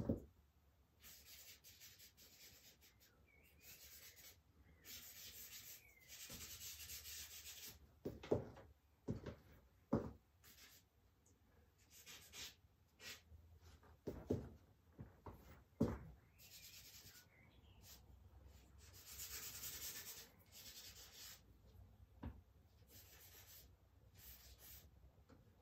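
Charcoal scraping and rubbing across drawing paper on an easel board, in faint scratchy strokes of about a second each, with a few light knocks in between.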